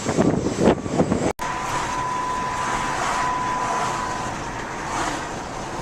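A car driving over a rough, rocky construction-site road, with the cabin jolting and rattling. About a second and a half in there is an abrupt cut to a steady rushing noise with a thin, continuous high tone.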